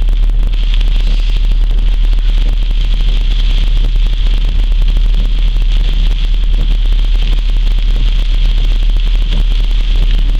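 Storm wind buffeting the microphone in a steady, loud low rumble over a constant hiss.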